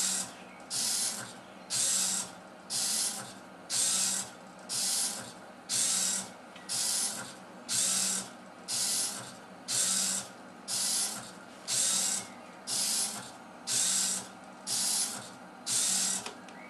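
Hobby servo motors of a Meccano robot arm whirring in short bursts, about one a second, as the arm swings between its programmed limits. The bursts stop shortly before the end.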